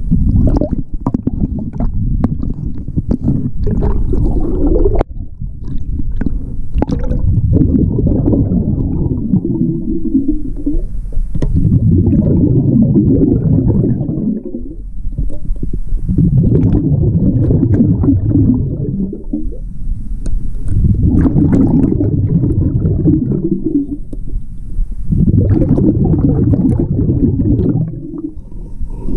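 Scuba diver breathing through a regulator underwater: exhaled bubbles rumble and gurgle out of the regulator in bursts of about three seconds, one every four to five seconds, with a short pause for each inhale.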